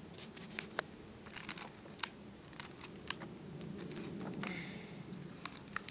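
Photo prints burning, with irregular crackles and sharp pops.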